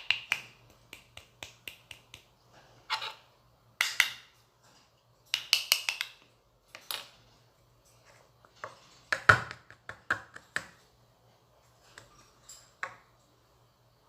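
Irregular sharp clicks, taps and short scraping rustles of small plastic containers and utensils being handled, over a faint steady low hum. The loudest knock comes a little past the middle.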